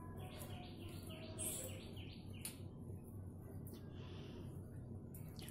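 Faint bird chirping in quick repeated notes, about four a second, in two runs, the second near the end, with a few soft clicks.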